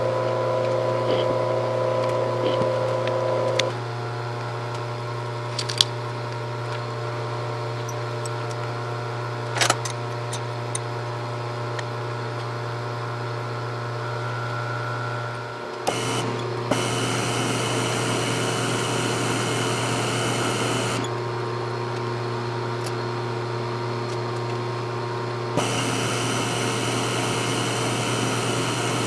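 Milling machine running with a steady motor hum and a few sharp clicks. The tone shifts about four seconds in, dips briefly near the middle, then turns rougher and hissier for several seconds, twice, as if cutting metal.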